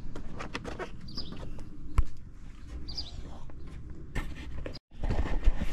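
Tools and cases being handled and shifted in a job box: scattered clicks and knocks, with one sharp knock about two seconds in. A bird chirps every couple of seconds in the background.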